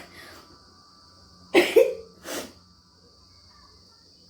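Two sharp, forceful breath bursts from a woman whose nose is being tickled with a cotton swab to make her sneeze. The first, about a second and a half in, is loud and briefly voiced. The second, half a second later, is shorter.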